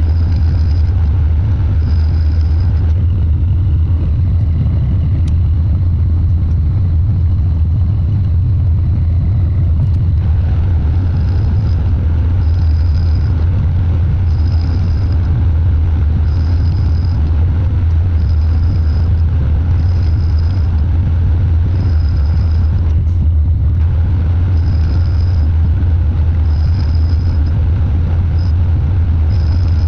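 Metal lathe running, turning an aluminum disc with light cuts: a steady low machine hum, with a short high note coming and going about every two seconds.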